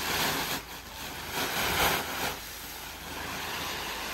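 Corn grain poured out of sacks onto a heap of barley: a rushing hiss that surges twice in the first two seconds, then runs on more evenly and softer.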